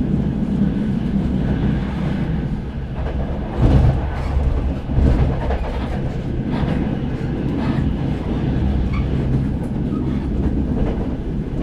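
Train running along the track: a steady low rumble, with occasional sharp knocks, the loudest about three and a half and five seconds in.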